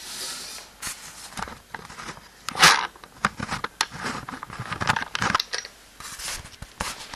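VEX robot's arm mechanism (motors, gears and metal frame) clicking and rasping irregularly as the arm swings, with one sharp, louder rasp about two and a half seconds in.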